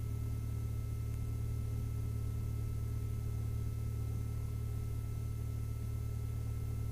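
1967 Mooney M-20F's Lycoming IO-360-A1A four-cylinder engine idling during its warm-up, heard in the cockpit as a steady low drone with a few faint steady tones above it.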